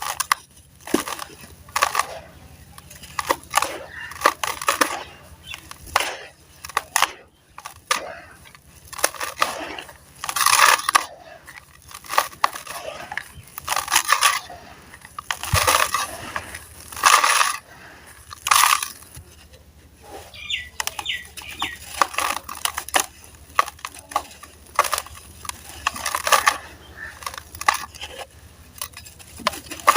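Sand-cement slabs being crumbled and crushed by hand in a tub: irregular gritty crunches, with the loudest breaks in the middle stretch.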